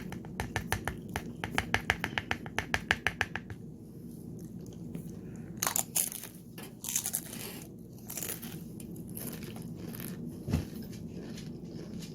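Tortilla chips being chewed close to the microphone: a fast, even run of crisp crunches, then a few scattered louder crunches and rustles.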